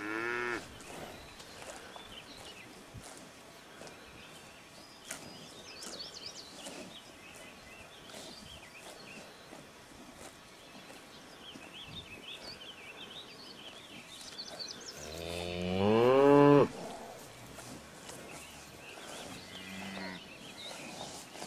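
Cattle mooing: one long, loud moo rising in pitch about fifteen seconds in and cutting off sharply, with the end of another call at the very start and a short, low moo near the end. Birds chirp faintly in between.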